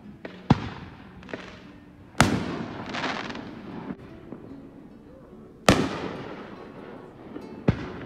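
Fireworks display: four sharp bangs of bursting shells. The two loudest, about two seconds in and again near six seconds, each trail off over a second or so, the first with a crackling swell after it.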